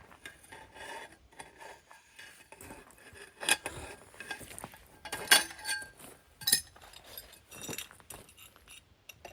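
Steel hook wrenches clinking and scraping against metal, with several sharp metallic clanks, the loudest about halfway through.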